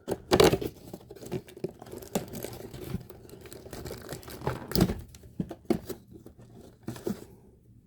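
Cardboard door of an advent calendar being pried and torn open by hand, with irregular crinkling, tearing and scraping handling noise as the marshmallow is taken out.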